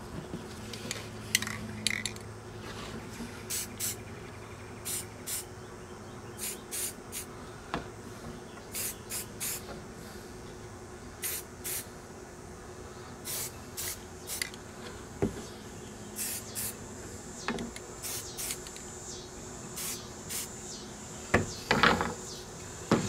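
Aerosol spray-paint can spraying in many short bursts, paint going onto a welded steel-wire basket frame, with a few light knocks in between and a louder noise near the end.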